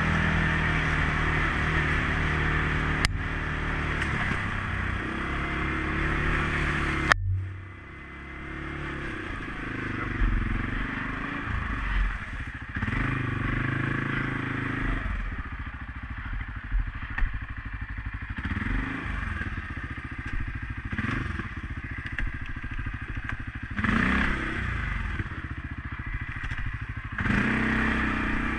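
CFMOTO CForce 500S ATV's single-cylinder engine running under throttle, the revs rising and falling. There are two sharp knocks, the second about seven seconds in, after which the engine drops back briefly before picking up again.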